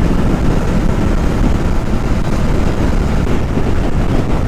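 Motorcycle riding at a steady speed: constant engine and road noise mixed with wind on the microphone.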